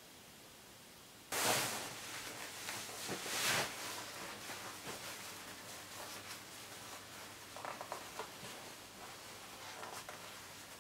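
Cloth rustling: two louder swishes a second or two in, then softer rustling of denim as a pair of jeans is pulled on.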